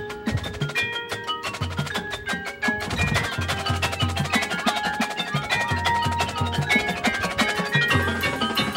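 Marching band percussion playing: mallet keyboards such as marimbas and bells strike quick ringing notes over repeated low drum strokes from bass drums and timpani.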